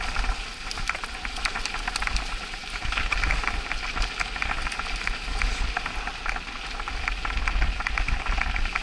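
Mountain bike tyres rolling over packed snow: a dense, irregular crackle of small crunches and clicks, over a steady low rumble of wind on the microphone.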